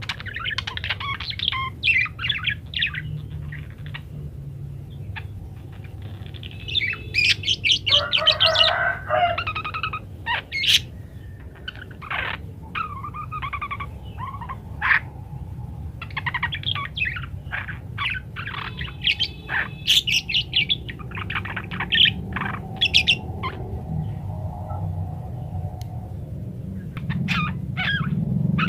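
Budgerigar chattering and warbling: a long, irregular run of quick chirps, trills and squawky notes, busiest about eight seconds in, over a steady low hum.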